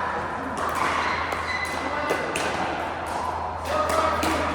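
Pickleball paddles hitting a plastic ball: a few sharp pops spread through a rally.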